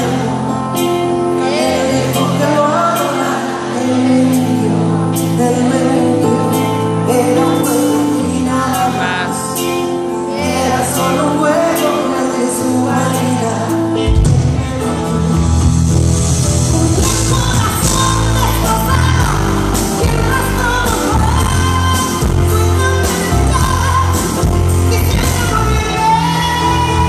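Female lead singer performing a ballad live with her band. Over held chords at first, the bass and drums come in about halfway through and the band plays fuller.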